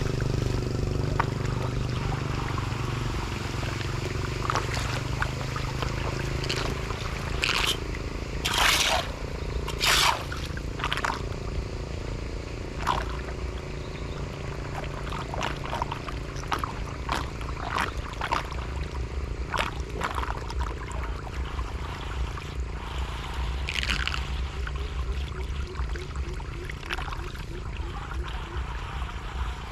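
Floodwater pouring and trickling away through a drain, a steady rushing flow. Short, sharp splashing and scraping sounds break in now and then, the loudest about 9 and 10 seconds in.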